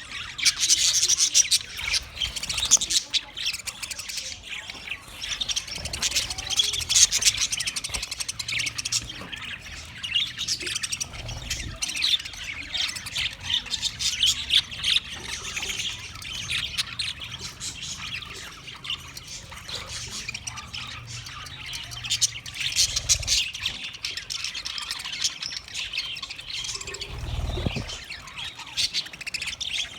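English budgie (budgerigar) chirping and warbling continuously, a fast run of short high chirps and chattering squawks.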